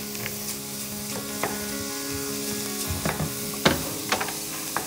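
Lamb shanks and diced vegetables sizzling in a stainless steel pot as a wooden spoon stirs them, with a few sharp knocks and scrapes of the spoon against the pot.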